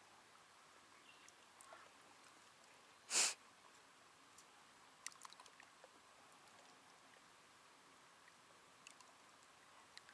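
A quiet background with one short, sharp sniff close to the microphone about three seconds in, followed by a few faint clicks about two seconds later.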